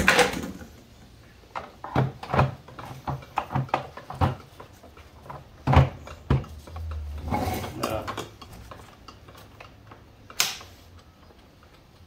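Makita VC3012MX1 wet/dry vacuum being handled: a string of separate plastic clicks and knocks from its body and fittings, with a short low rumble about seven seconds in.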